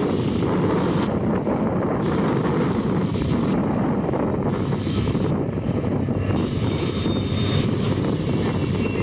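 Union Pacific diesel-electric locomotive working hard under load as it hauls a double-stack container train up a steep grade: a steady, loud engine rumble.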